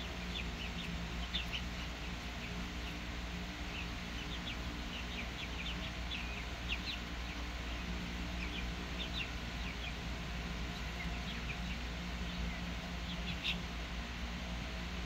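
Young chickens peeping, many short high chirps scattered throughout, over a steady low hum.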